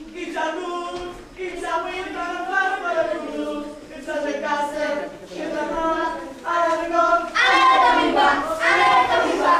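A group of children singing together, getting louder about seven seconds in.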